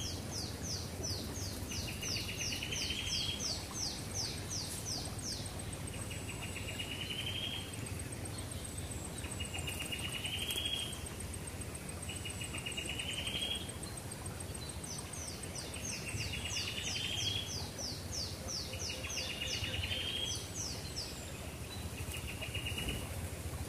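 Forest ambience of wild birds and insects calling. A buzzy rising trill repeats every two to three seconds throughout, and quick runs of high, falling chirps come in the first five seconds and again about fifteen seconds in, over a low steady background rumble.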